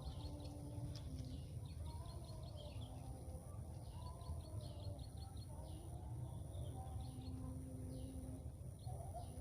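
Small birds chirping in quick runs of short, high notes, several runs in a row, over a steady low outdoor rumble.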